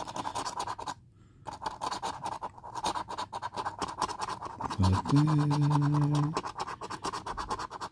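Rapid scraping strokes of a scratch-off lottery ticket's coating being scratched off, pausing briefly about a second in. A short low hum from the person scratching comes about five seconds in.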